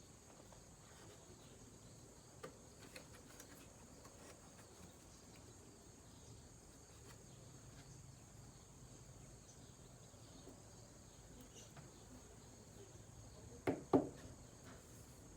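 Quiet background with a faint, steady high-pitched hiss or chirr and a few faint ticks. Near the end come two sharp knocks in quick succession, the loudest sounds here.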